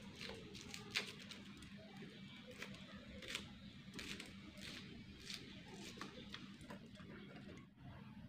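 Faint, irregular clicks and scrapes of a small knife peeling dry papery skins off garlic or small onion cloves, about one or two a second, the sharpest about a second in, over a low steady hum.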